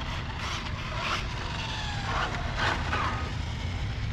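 Electric RC car making a speed pass, its motor whine gliding slowly down in pitch as it goes by.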